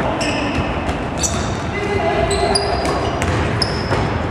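Basketball game on an indoor court: sneakers squeaking sharply on the floor several times, the ball bouncing, and players' and spectators' voices in the background.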